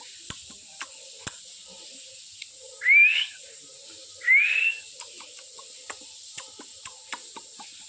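Pet parrot giving two short, loud whistles that rise in pitch, a little over a second apart, with faint scattered clicks around them.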